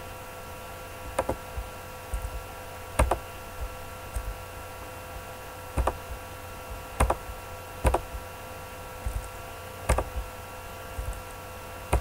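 Computer keyboard and mouse clicks, singly or in quick pairs about every second or so, as components are grabbed and placed with a hotkey and the mouse. A steady hum of several fixed tones runs underneath.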